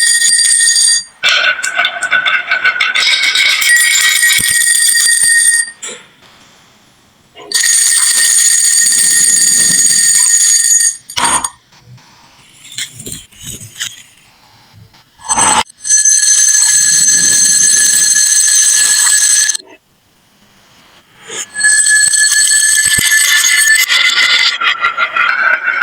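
Background music of bright, steady bell-like tones that stops and restarts several times. In the quiet gaps a few sharp clicks sound, like marbles striking.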